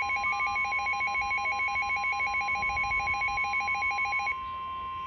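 Weather radio alert tones: the steady 1050 Hz NOAA Weather Radio warning alarm tone, with a fast-warbling electronic alarm laid over it that stops a little after four seconds in, leaving the plain steady tone.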